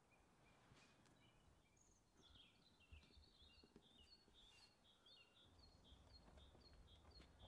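Faint birdsong: a quick run of chirps, then one short chirp repeated about twice a second.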